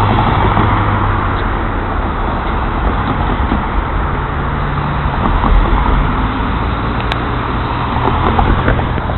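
Alco RS-32 diesel-electric locomotive moving away, its 12-cylinder Alco 251 engine running with a steady low drone under a broad rushing noise.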